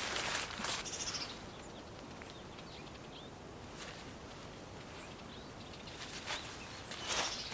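Short bursts of rustling noise at the start and again near the end, with a few faint bird chirps in the quiet stretch between.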